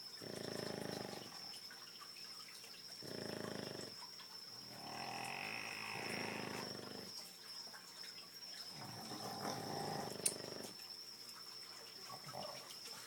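Boston terriers snoring in their sleep: several drawn-out, rasping snores, one every two to three seconds, some longer ones overlapping.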